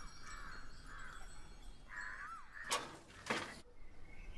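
Faint outdoor birdsong with crows cawing; two short, harsh, louder caws a little over halfway through, about half a second apart.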